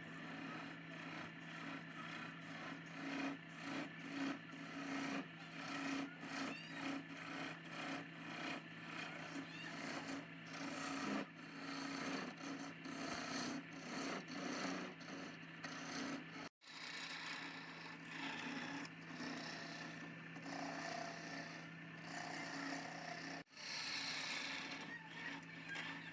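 Wood lathe running with a steady motor hum while a tool scrapes and cuts the spinning wood, a rough, rasping sound that comes and goes in quick strokes. The sound drops out abruptly twice.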